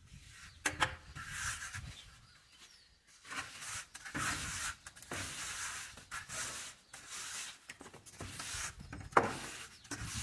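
Wet cement plaster being scraped and rubbed on a wall in a series of rough, irregular strokes, with a wooden straightedge handled against the surface. A sharp knock comes shortly after the start and a louder one near the end.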